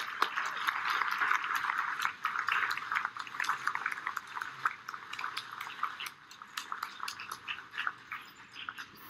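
Audience applauding, fullest over the first few seconds and gradually thinning out toward the end.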